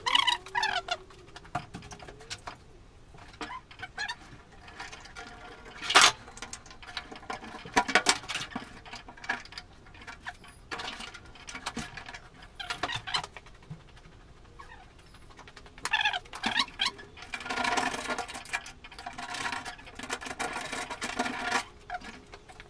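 Locking pliers clamped, released and moved, and a thin steel repair patch shifted against a van door's sheet metal: scattered metallic clicks and knocks, one sharp knock about six seconds in, and a stretch of scratchy rubbing later on.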